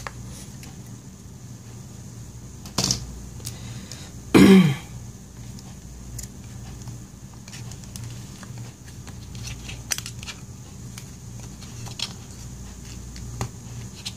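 Scattered light clicks and taps of a plastic spudger prying at parts inside an opened MacBook Air, over a steady low hum. A sharp knock comes near three seconds in, and a louder half-second sound that falls in pitch comes about four and a half seconds in.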